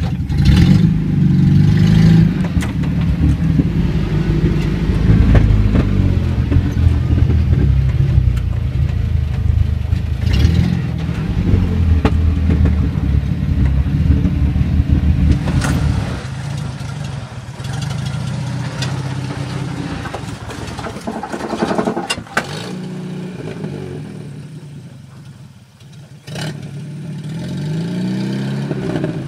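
A 1970 Land Rover Series IIA's engine running under load as it crawls over a rough dirt track, heard inside the cab, with occasional knocks. About halfway through the sound turns quieter. Near the end the engine revs with a rising pitch as the Land Rover climbs a rutted slope.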